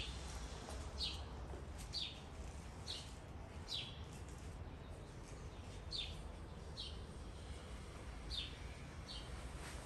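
A small bird repeating short, high chirps that slide down in pitch, about one a second with a brief pause near the middle, over a steady low background hum.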